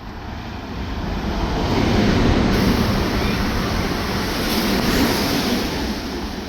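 Train passing through at speed: a loud rush of rail and wheel noise that builds over the first two seconds, holds for about three seconds, then fades away.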